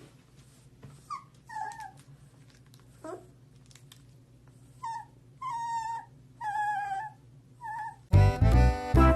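A puppy whining in a string of short, high, wavering whimpers, about seven in all. Loud brass-band music cuts in near the end.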